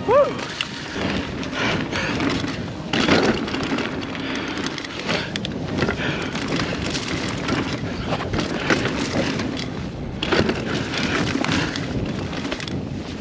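Rocky Mountain Instinct A10 full-suspension mountain bike with 29-inch wheels ridden fast down a dirt trail: a steady rush of tyre noise, with many small knocks and rattles from the bike over bumps.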